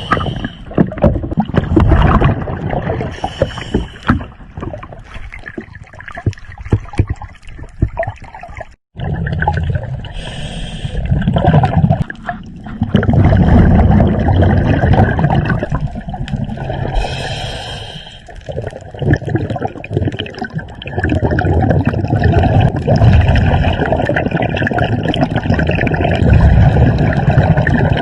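Underwater sound of a scuba diver breathing through a regulator: a short hiss of inhalation every several seconds, each followed by a long, loud gurgling rush of exhaled bubbles.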